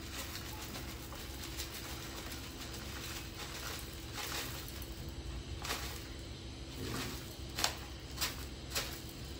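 Dry muesli being poured from a packet into a ceramic bowl: a continuous light rattle of flakes and nuts landing, with a few sharper clatters in the second half, over a low steady hum.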